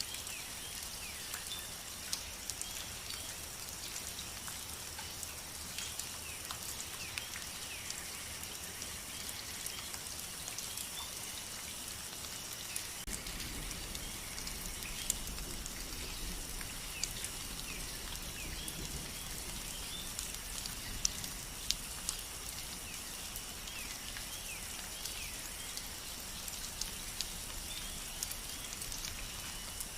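Rain pattering, with many separate drops ticking irregularly over a steady high hiss. A low rumble joins in about halfway through.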